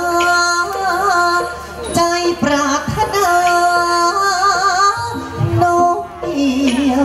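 Likay singing: a Thai folk-theatre performer sings through a headset microphone in long held notes with a heavy, wavering vibrato, with a few sharp percussion strikes a couple of seconds in. About five seconds in the melody drops to a lower held phrase.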